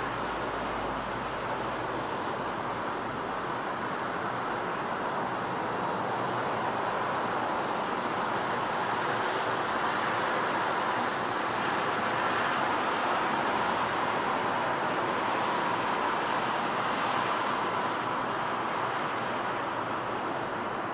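Steady wash of distant road traffic, swelling a little past the middle, with a few short, high bird chirps and trills.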